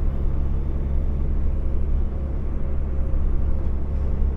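Semi-truck's diesel engine and tyre noise heard from inside the cab while cruising at highway speed: a steady low drone with an even hum.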